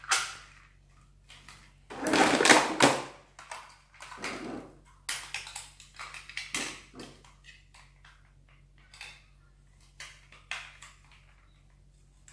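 Hard plastic toy parts clicking and rustling as red armor pieces are handled and fitted onto an Armor-Up Baymax figure: a loud rustling burst about two seconds in, then scattered clicks and shorter rustles.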